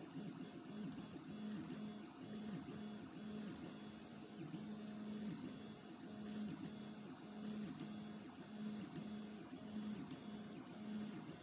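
Stepper motors of a homemade 3D printer working as a pen plotter, humming in short stop-start moves as the pen carriage traces a drawing. The hum cuts in and out about once a second.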